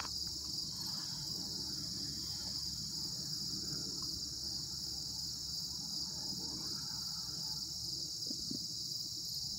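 Steady, high-pitched chorus of insects droning without a break, over a faint low rumble.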